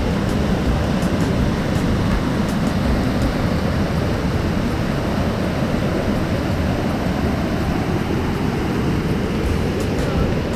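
Steady, loud rushing noise of falling water, with no pauses or changes.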